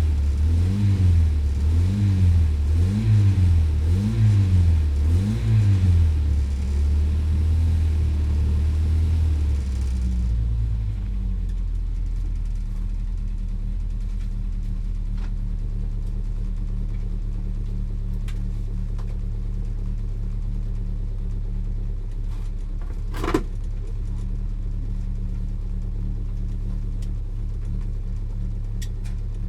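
Lotus Elan GTS engine revved about five times in quick succession, each rev rising and falling, then settling into a steady idle. There is a single sharp click partway through the idle.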